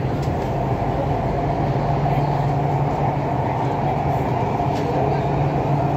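Metro train running, heard from inside the passenger car: a steady rumble with a low hum and a higher whine over it.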